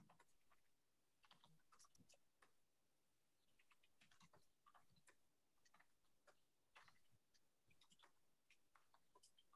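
Faint, irregular clicks and taps coming in small clusters, the kind made by typing or tapping on a keyboard or phone.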